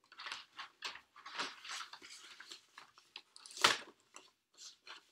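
Paper and cardboard vinyl record sleeves being handled: a run of short crinkling, rustling sounds as an inner sleeve and album jacket are shifted and turned, with one louder, sharper rustle about three and a half seconds in.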